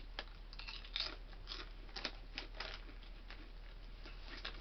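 Potato crisps being chewed, with irregular dry crunches a few times a second.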